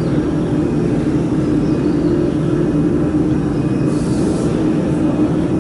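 Steady drone of running workshop machinery, a constant hum like a large fan, with a brief faint hiss about four seconds in.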